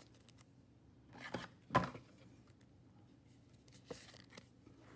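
Trading cards and their plastic holders being handled: a few short rustles and scrapes, the loudest just under two seconds in, with small clicks between.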